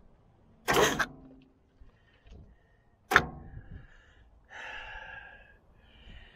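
Cummins 6BT diesel of a flooded excavator being bumped over on the starter twice, each time a sudden blast that winds down in pitch as it blows oil and gunk out from on top of the pistons of the liquid-locked engine. A softer rushing sound follows for about a second.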